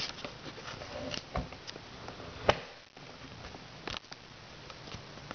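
Fingers handling a hard clear plastic iPod Touch box, giving scattered light taps and clicks; the sharpest click comes about two and a half seconds in, with others near one and a half and four seconds.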